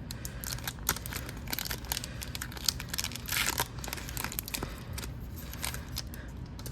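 Foil wrapper of a hockey card pack crinkling and tearing open, with a longer rip about three and a half seconds in.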